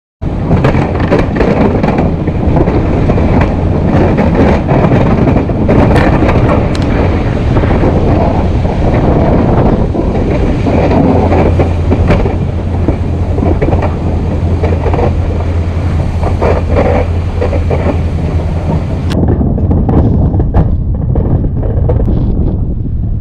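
Snow-plowing vehicle running steadily with a low engine hum, under loud, dense noise with scattered knocks and rattles. The sound cuts in abruptly at the start and turns duller about 19 seconds in.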